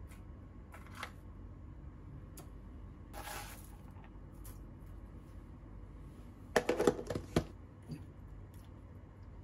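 Metal spoon stirring batter in a ceramic bowl, clinking sharply against the bowl several times in quick succession near the end, after a few soft taps and a brief rustle.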